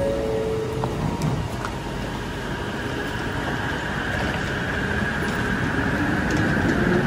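Light-rail train standing at a station platform with its doors open, giving a steady hum, while a crowd of passengers shuffles on and off. In the first second, the lower note of a falling two-note chime sounds.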